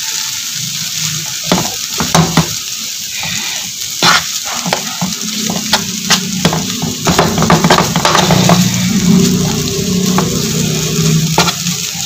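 Food frying with a steady sizzle in a large flat pan, while a metal spatula chops and scrapes through it with quick, irregular clacks against the pan. This is the clatter that gives taka tak its name.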